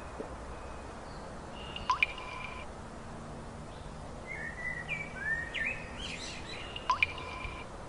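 Birds calling over a steady background hiss: a sharp call that sweeps upward and then holds is given twice, about five seconds apart, with a run of short chirping notes in between.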